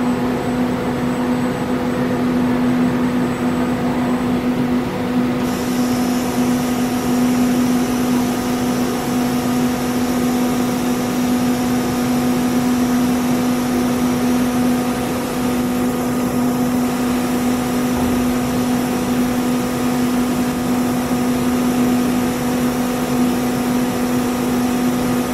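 CMS 5-axis CNC router running a program, a steady machine hum with one strong low tone and its overtones. A higher hiss comes in about five seconds in.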